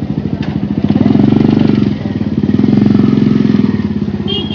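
Motorcycle engine running close by, its exhaust pulsing rapidly and growing louder twice. A short high tone sounds near the end.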